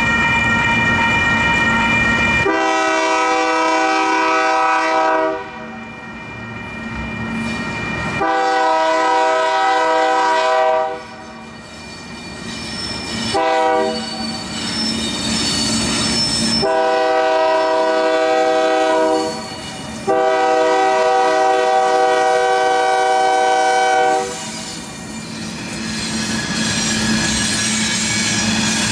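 Union Pacific AC4400CW diesel locomotive's air horn sounding the grade-crossing signal: two long blasts, a short one, then a final long blast with a brief break in it, over a ringing crossing bell. After the horn stops, the locomotives pass with wheel clatter on the rails.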